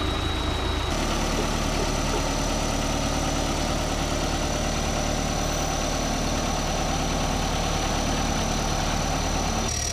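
Heavy engine running steadily at idle, a low even hum, from the engine-driven hydraulic lifting unit of a building-moving rig.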